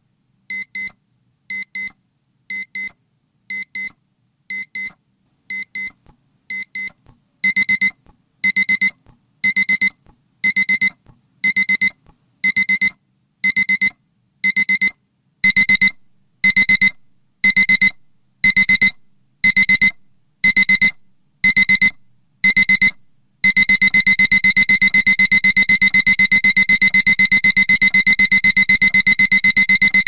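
Digital alarm-clock beeping that signals a countdown has run out: high beeps about once a second, getting louder in two steps. About three-quarters of the way through they turn into fast, unbroken beeping.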